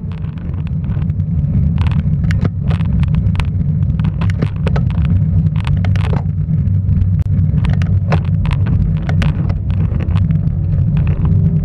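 Wind rumbling on a bicycle-mounted camera's microphone while riding, with tyre noise on damp pavement and frequent sharp clicks and rattles throughout.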